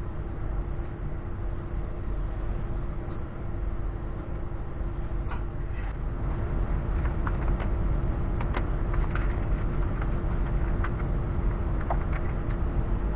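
A steady low hum and rumble, with light clicks and short rustles from sheet material being handled on the workbench starting about halfway through.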